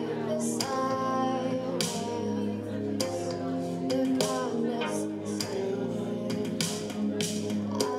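A woman singing a slow song into a microphone over sustained instrumental backing.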